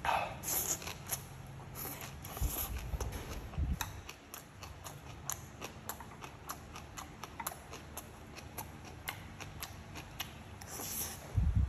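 Close-up eating sounds: a slurp as a strand of stir-fried greens is sucked into the mouth at the start, then chewing with many small wet mouth clicks and a couple of dull thumps, and another slurp near the end.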